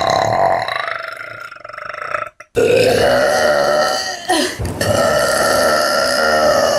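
Long, drawn-out burps from a girl: one trails off about two seconds in, then after a brief gap another long, loud burp follows and runs almost to the end, with a short break in the middle.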